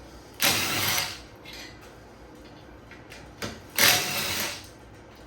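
A 10 mm tool working the handlebar bolts loose: two short mechanical bursts, about half a second in and just under four seconds in, with light metal clicks between.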